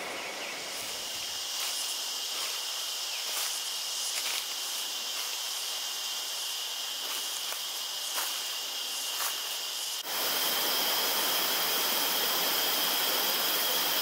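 Forest insects droning with steady high tones, with a few short crunches of footsteps on dry leaf litter. About ten seconds in, it cuts suddenly to a louder steady rush of a flowing stream, the insect drone still going over it.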